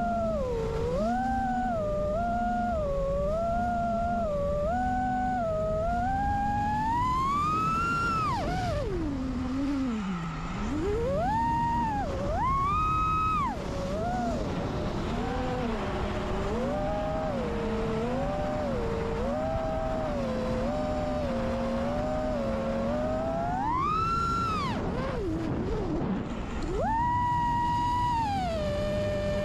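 The racing quadcopter's brushless motors (iFlight Xing2 2306 2555Kv) spinning tri-blade 5-inch props, heard from the onboard camera as a loud whine whose pitch follows the throttle. It holds in short steady steps, then several times climbs sharply and falls back, and once drops very low before rising again.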